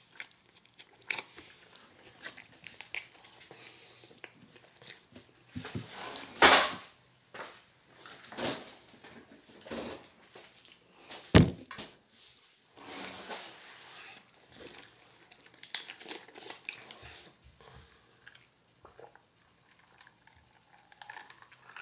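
Small household noises of someone eating at a table: chewing and light clicks and knocks of a fork and plate, with two much louder knocks about six and eleven seconds in.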